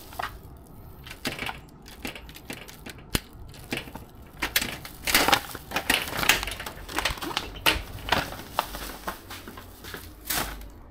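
Sharp clicks from a mechanical push-button combination lock being keyed and its door knob turned, then the rustle and crinkle of a plastic rubbish bag handled and dropped into a bin.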